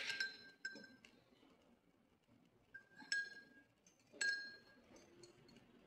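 Small glass Hero's-engine bulb on its wire holder clinking against the rim of a drinking glass of water: four light clinks, each with a short glassy ring, about three seconds in and four seconds in among them.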